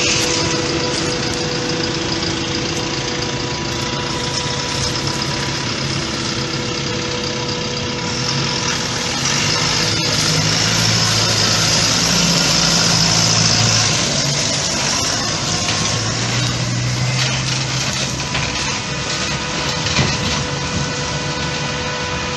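Heavy farm machinery running steadily during maize silage harvesting: tractor and forage harvester engines, with a steady whine. A deeper engine note grows louder and shifts in pitch through the middle.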